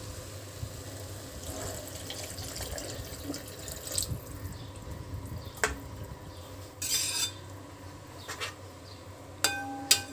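Water poured into a steel pan of thick masala, then a metal slotted spatula stirring and scraping through the watery gravy, with a few knocks against the pan and two ringing metal clinks near the end.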